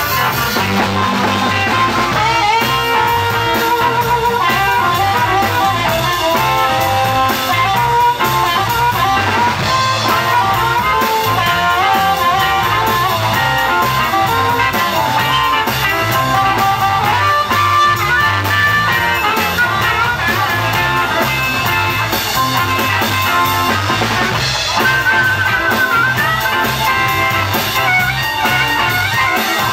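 Live electric blues band playing an instrumental stretch: a blues harmonica played into the vocal microphone, with electric guitars and a drum kit keeping a steady beat.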